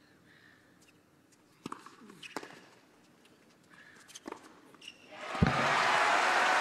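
A tennis rally in a hushed arena: a few sharp cracks of the ball off racket strings, spaced out over several seconds. Near the end the crowd breaks into applause and cheering, with a heavy thump as it starts.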